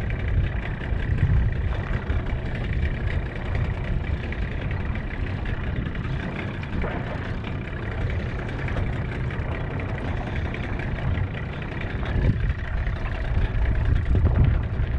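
Small boat's outboard motor running at idle: a steady low rumble that swells slightly near the end.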